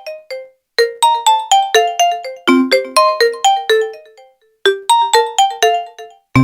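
Nokia N95 ringtone: a quick melody of short decaying notes, about four a second, in phrases broken by brief pauses. It ends with a sharp click near the end.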